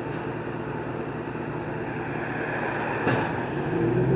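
A truck engine running steadily; about three seconds in there is a knock, and the engine note then grows louder and steadier.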